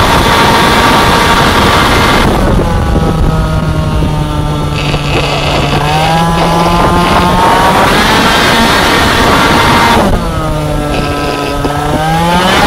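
Two-stroke racing scooter engine heard onboard under hard acceleration with wind rush, its revs dropping twice as the rider backs off the throttle and then climbing again.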